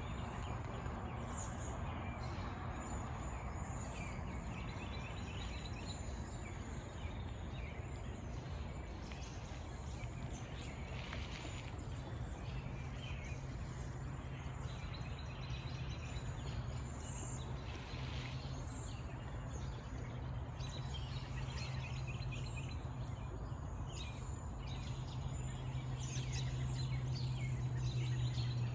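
Outdoor ambience of birds calling now and then over a steady low hum and background noise; the hum grows louder near the end.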